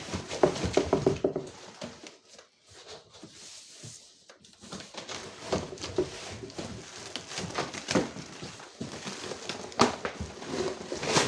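Rolled, plastic-wrapped mattress being shuffled out of its cardboard box: irregular rustling, scraping and knocks, busiest in the first second and a half, with a sharp knock near the end.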